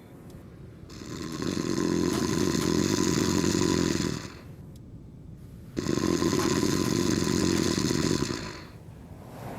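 A man snoring: two long, rasping snores of about three seconds each, with a pause between them. The first swells in gradually and the second starts abruptly.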